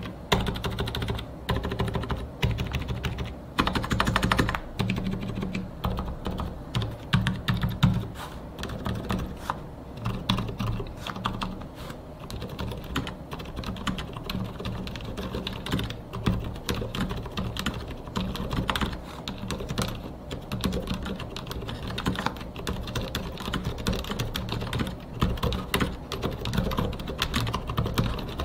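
Continuous typing on a Mars Pro Shooting Star mechanical keyboard fitted with fully lubricated silent red switches and PPS keycaps: a dense, unbroken stream of keystrokes.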